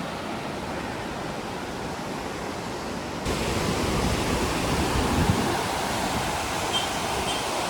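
Steady rushing of a fast-flowing river, a continuous even roar that gets louder and deeper about three seconds in.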